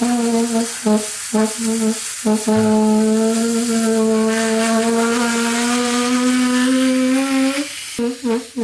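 A steady musical note with overtones: a few short notes, then one note held for about five seconds that rises slightly just before it stops.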